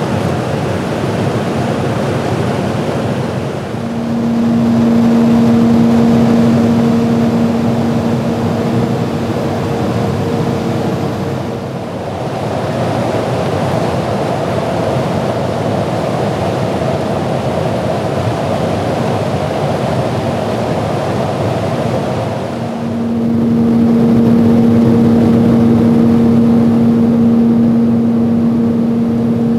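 Steady rushing wind and engine noise of an aircraft in flight, with a low steady hum that comes in about four seconds in, drops out around twelve seconds and returns near twenty-three seconds.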